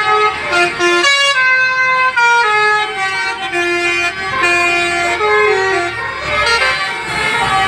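Basuri musical bus horn (a 'telolet' multi-trumpet air horn) playing a tune: a run of held notes stepping up and down in pitch, sometimes two notes sounding together.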